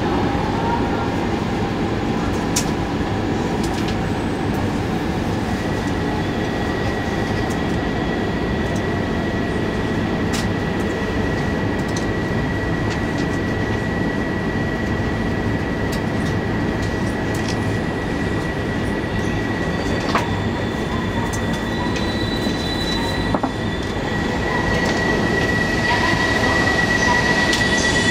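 Running noise heard inside a passenger car of an E2 series Shinkansen: a steady, dense rumble of the train moving over the track. After about five seconds a thin, steady, high-pitched whine joins in, growing louder near the end as the rumble also rises.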